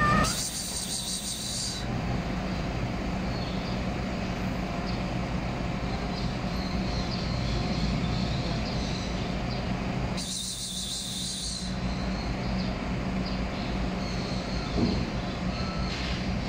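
Steady low mechanical hum and rumble, with two short bursts of high-pitched hissing buzz, one at the start and one about ten seconds in.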